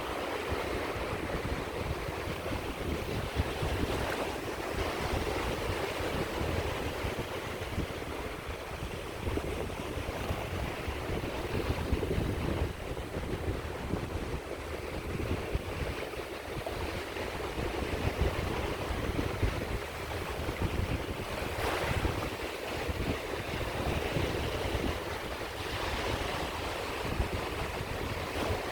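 Waves breaking and washing on a sea shore, a continuous surf wash with a few louder breakers, and a low rumble of wind on the microphone.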